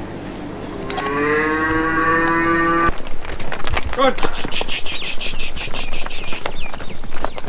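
A calf mooing: one long call, steady in pitch, that breaks off sharply, then a shorter wavering call about four seconds in. A quick run of high ticks and chirps follows.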